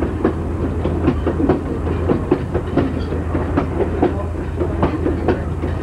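Passenger car of a moving train rolling over jointed track, its wheels clicking and knocking irregularly several times a second over a steady low rumble.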